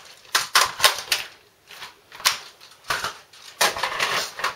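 Clicks and clacks of an M4-style airsoft rifle's magazine being swapped for a high-capacity magazine: a string of separate sharp clicks, with a denser run of them near the end.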